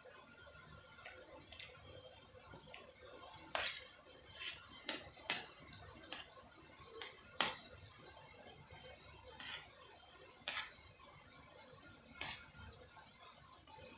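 Cutlery clinking and tapping against a plate or bowl while someone eats noodles, about a dozen sharp, irregular clinks.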